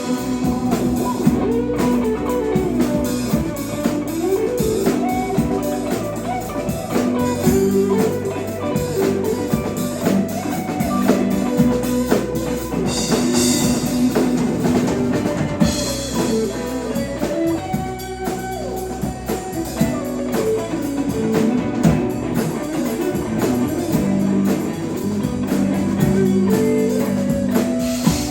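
Live rock band playing: electric guitars over bass and drum kit, with cymbal crashes about a dozen and sixteen seconds in.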